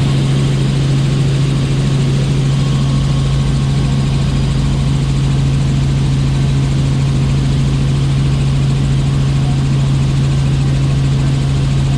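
Helicopter in flight heard from inside the passenger cabin: a loud, steady rotor and engine drone with a constant low hum, unchanging throughout.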